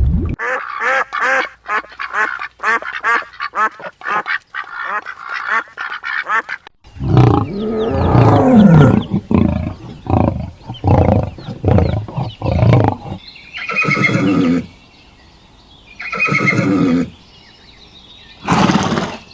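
Ducks quacking: a quick run of short quacks over the first several seconds, then louder, lower calls and a few longer ones near the end.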